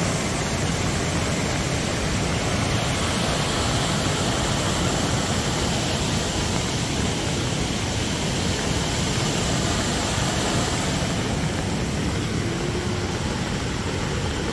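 Steady roar of a river in flood, fast muddy water rushing below, mixed with heavy rain.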